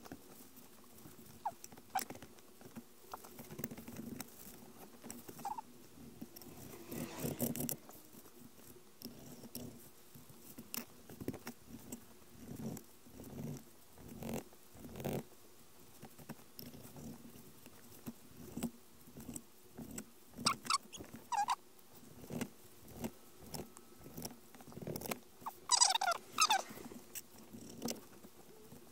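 Kitchen knife slicing isaki fillets into sashimi on a plastic cutting board: a string of soft, irregular taps and scrapes of the blade against the board. A brief squeaky call comes twice about two-thirds of the way through, and a louder one near the end.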